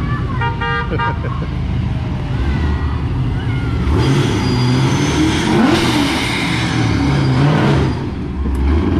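A car horn honks once, briefly, about half a second in, over the steady low rumble of loud-exhaust car engines rolling slowly by. The rumble grows louder midway, with one engine revving up and back down.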